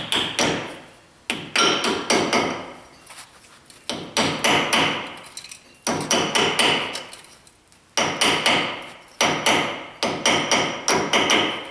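Hammer tapping a metal grease cap (dust cover) onto a front wheel hub over its freshly packed bearings: quick clusters of sharp, ringing strikes repeated every second or two.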